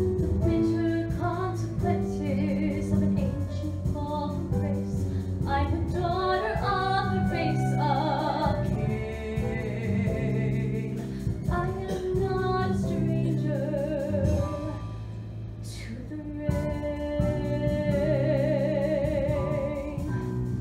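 A woman singing a solo show tune, with vibrato on held notes, over instrumental accompaniment, heard live in a theatre from the audience.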